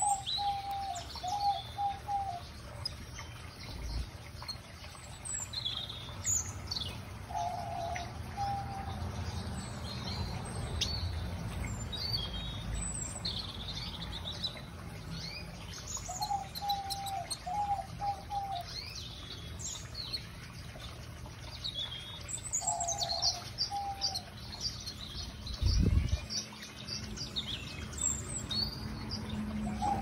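Aviary finches and canaries chirping and calling over one another, with short high chirps, trills and a quick ticking series, while a lower call phrase of a few short notes comes back about every seven or eight seconds. A single low thump sounds about 26 seconds in.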